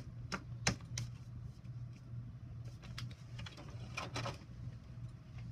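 A few scattered sharp clicks and taps over a steady low hum, with a small cluster of clicks about four seconds in.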